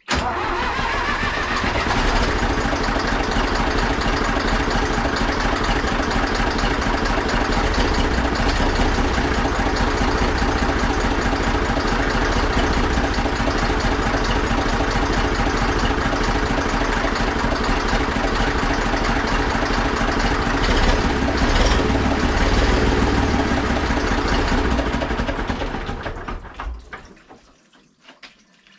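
Zetor 4911 tractor's diesel engine catching and revving up over the first couple of seconds, then running steadily, and being shut off and dying away near the end. This is a first run after more than ten years parked.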